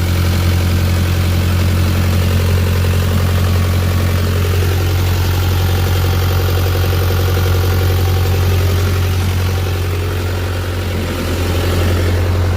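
Carrier X4 refrigeration unit's diesel engine running steadily after its fuel system has been hand-primed and bled of air following a run-out of fuel. Its level dips slightly about eleven seconds in, then recovers.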